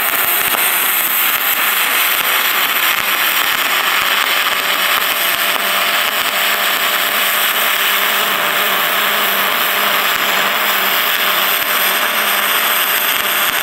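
MIG welding arc in spray transfer, running 0.035 in 4043 aluminum wire on 1/4 in aluminum plate: a steady, even hiss with no crackle, the sound of a proper spray arc. It cuts off right at the end.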